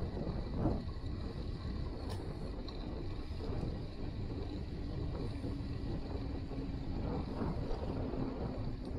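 Wind rushing over the microphone and a low rolling rumble while riding a bicycle, with a faint steady hum joining about halfway through.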